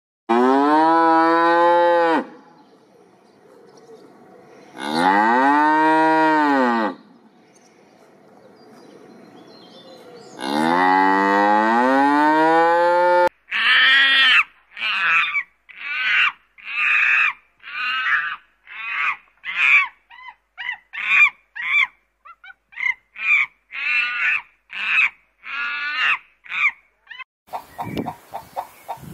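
Cattle mooing: three long moos a few seconds apart, each rising and then falling in pitch. Then a monkey gives a rapid run of short, high calls, about two a second, for some fourteen seconds. Chickens start clucking just before the end.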